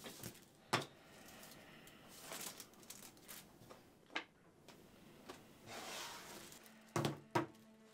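Paper handled at a desk: soft rustling of an envelope and letter, with a few sharp taps and clicks. Quiet music begins near the end.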